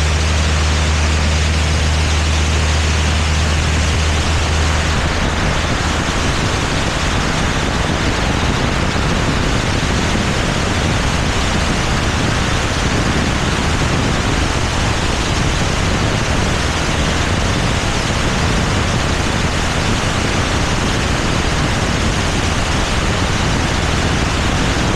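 Single-engine propeller plane on its takeoff roll and climb-out, heard from a camera mounted on the wing. A low engine hum is clear for the first few seconds, then a steady, heavy rush of wind over the microphone buries it.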